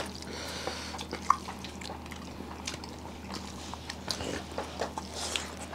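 People eating curry with their hands: faint wet chewing and mouth smacks with many small scattered clicks.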